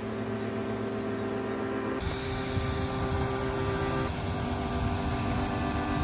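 Rushing water of a waterfall, a steady loud roar that comes in about two seconds in, under background music of held chords.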